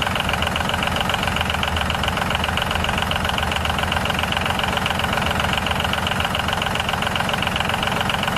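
Small engine running at a steady idle with a rapid, even knocking beat; it starts and stops abruptly.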